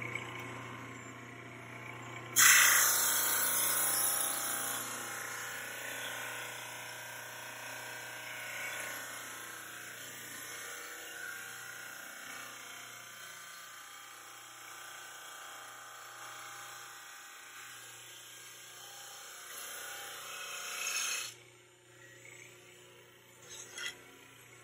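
Supermax 16-32 drum sander running with a steady motor hum. About two seconds in, a board on its conveyor meets the sanding drum and a loud, high hissing whir starts suddenly. The whir eases off gradually and stops abruptly about three seconds before the end as the board leaves the drum, followed by a couple of light knocks.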